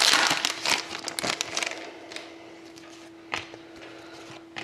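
Hockey card pack wrapper crinkling and tearing as it is opened, dying away after about a second and a half, followed by a few soft clicks over a faint steady hum.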